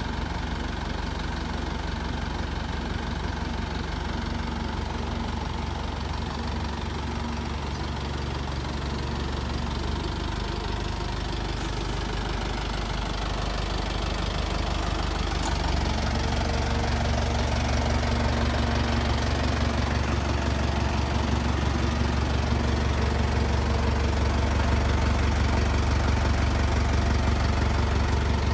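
A vehicle engine idling steadily, its hum stepping up and growing a little louder about halfway through.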